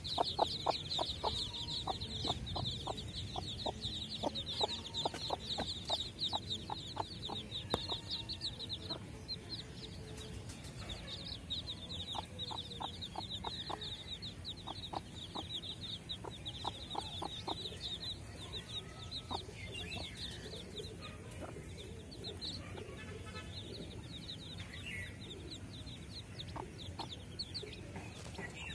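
Many desi chicks peeping continuously: high, quick, down-sliding peeps that thin out in the last third. Under them a broody hen gives short low clucks in quick runs, mostly in the first half.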